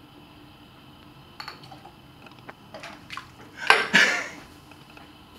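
Light clinks and knocks of glassware as a small cup of yeast mixture is poured into a foil-wrapped flask to start an elephant toothpaste reaction. A loud short burst follows about three and a half seconds in, as the foam shoots out.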